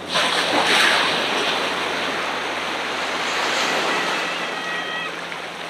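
A wave breaking on a beach: a sudden rush of surf at the start, loudest in the first second, then the wash slowly dying away.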